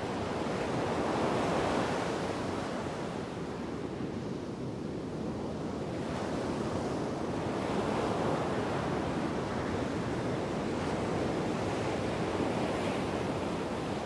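Ocean surf: waves washing in, the noise swelling and easing every few seconds.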